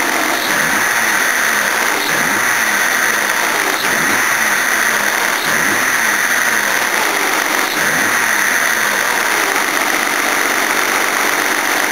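Toyota Cressida's 5M straight-six being blipped through a series of short free revs, each rising and falling back to idle, with no load on it. No knock is heard. The owner had heard a knock when revving it unloaded and suspected worn big-end bearings or timing trouble.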